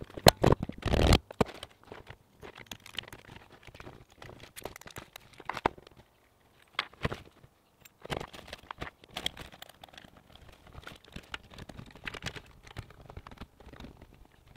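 Hands working electrical wire and grey flexible plastic conduit: irregular rustling, crinkling and light clicks, with a louder burst of rustling about a second in.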